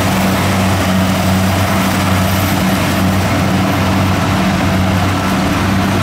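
Kubota rice combine harvester working through lodged rice: its engine holds a steady low drone under a dense rushing noise from the machine.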